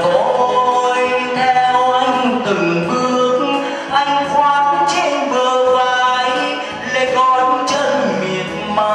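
Live performance of a Vietnamese Catholic song: singing with musical accompaniment, sustained melodic lines with no pauses.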